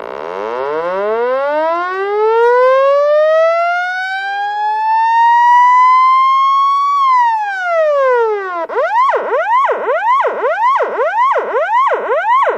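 Police siren: a long wail rising slowly for about seven seconds, falling over the next two, then switching to a fast yelp that sweeps up and down about twice a second.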